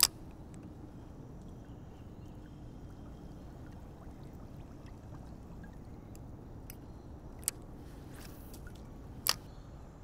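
Faint steady trickle of water around a kayak, with a few sharp clicks: one at the very start, one about seven and a half seconds in, and a louder one near the end.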